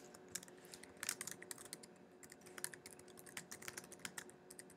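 Computer keyboard typing: a fast, uneven run of light key clicks, faint.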